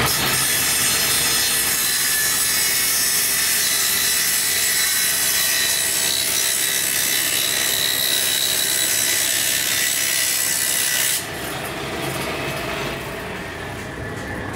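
Table saw's circular blade cutting through a white laminated particle-board panel: a loud, harsh, high-pitched noise that stops abruptly about eleven seconds in as the cut ends, leaving a quieter sound.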